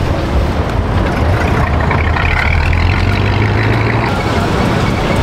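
Car engine running at low speed, a steady low rumble.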